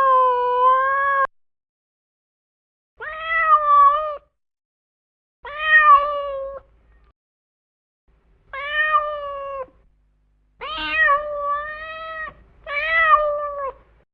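A domestic cat meowing, six drawn-out meows of about a second each with short silent gaps between them; the fifth is longer and wavers in pitch.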